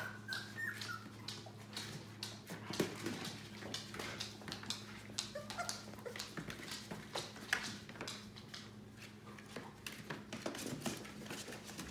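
Litter of 18-day-old yellow Labrador puppies whimpering with a few short, high squeaks, over scratching and rustling as they crawl about on a blanket.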